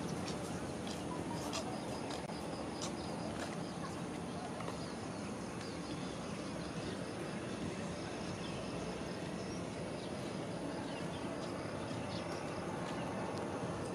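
Outdoor ambience: a steady wash of background noise with faint, rapid high-pitched chirping and a few light ticks.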